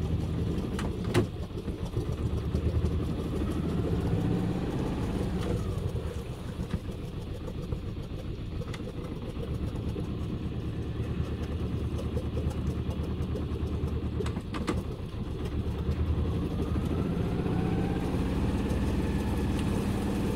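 Sailboat's inboard engine running steadily as the yacht motors along. The engine note drops a little about six seconds in and rises again after about sixteen seconds, with a short knock about a second in and another about fourteen seconds in.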